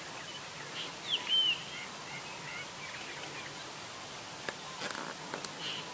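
Wild birds calling in short, downward-curving chirps, a pair about a second in and again near the end, with fainter scattered chirps between, over a steady outdoor hiss. A few faint clicks come late.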